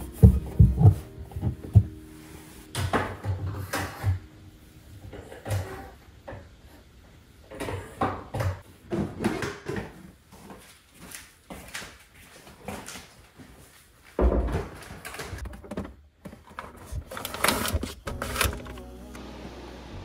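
Toiletry bottles, storage baskets and towels handled and set down on an under-sink cabinet shelf: irregular knocks, clunks and rustles, heaviest near the start and again about two-thirds of the way through.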